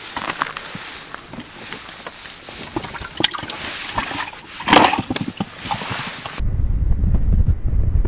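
Crackly rustling and scattered clicks of clothing, gloves and a caught bream being handled on the ice beside the fishing hole, with a louder rushing burst about five seconds in. About six seconds in this changes abruptly to a low, steady wind rumble on the microphone.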